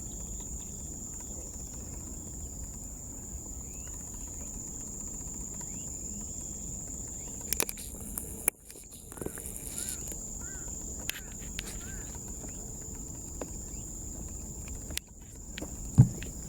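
Outdoor riverside ambience: a steady high-pitched insect drone over a low rumble, with a few sharp clicks about halfway through and a single thump near the end.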